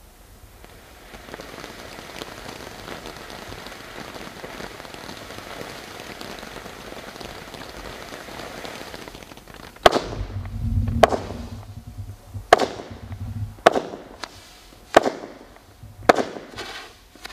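Red Rhino 'Desert at Night' consumer firework burning with a steady crackling hiss for about nine seconds, then six loud bangs a second or so apart.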